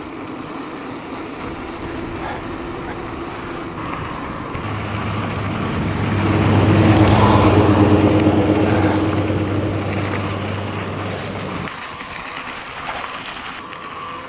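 A four-wheel-drive ute passing an e-bike on a gravel road: its engine and tyre noise swell to a peak about halfway through and then fade, over steady wind and tyre noise. A low, steady hum runs through the middle stretch and cuts off near the end.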